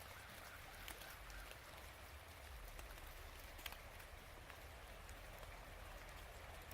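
Faint, steady rush of flowing river water, with a few scattered small ticks and drips, the clearest about three and a half seconds in.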